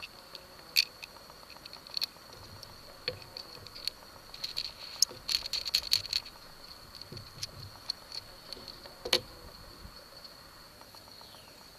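Small hard objects being handled: scattered light clicks and taps, bunched together about halfway through, with one sharper click near the end, over a steady faint high-pitched tone.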